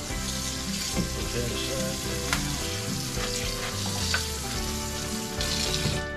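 Kitchen faucet running into a stainless steel sink, a steady splashing hiss that is shut off near the end.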